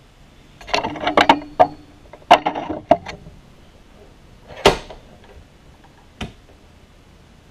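Metal-on-metal clanks and clicks from a steel bench vise being opened, its sliding handle knocking as it is turned, with brief ringing. A single louder knock comes about halfway through and a smaller one near the end.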